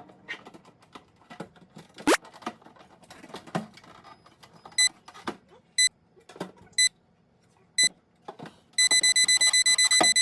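Refrigerator door-open alarm beeping: single electronic beeps about once a second, then speeding up to a fast, continuous run of beeps near the end, the sign that the fridge door has been left open too long. Light knocks and clatter of items being handled come before it.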